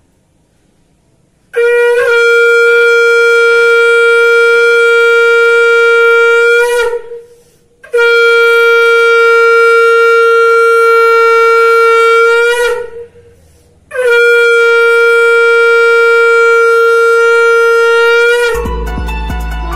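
Conch shell (shankha) blown three times for the Hindu evening prayer (sandhya), each blast one long steady note of about five seconds with a short break between. Quieter music comes in near the end.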